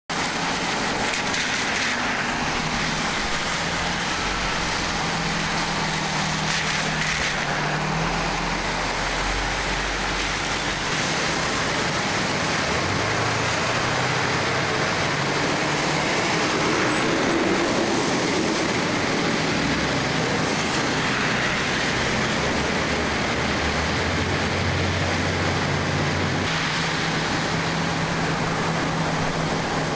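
Cars and a van driving slowly through floodwater, tyres sending up a steady hiss of spray and splashing water. Low engine hum rises and falls as the vehicles pass.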